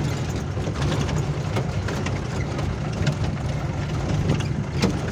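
A vehicle's engine running steadily with a low rumble, with scattered rattling clicks over it.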